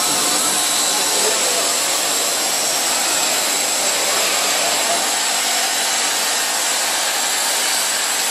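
PVC foam board extrusion line running: a loud, even machine hiss and whir with a few steady high-pitched whines in it, unchanging throughout.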